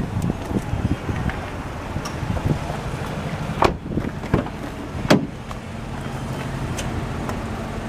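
Honda Life's 660 cc kei-car engine idling steadily, with a few sharp clicks or knocks about halfway through.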